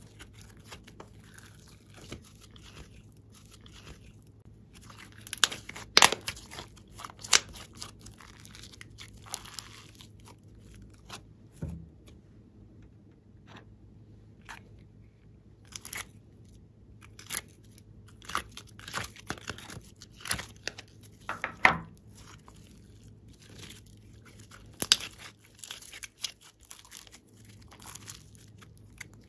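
Hands squeezing, stretching and pressing glossy slime: scattered sticky clicks and pops with quieter squishing between them.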